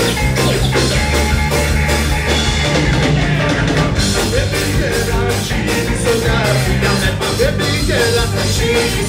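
Live ska band playing loudly, with drum kit and bass.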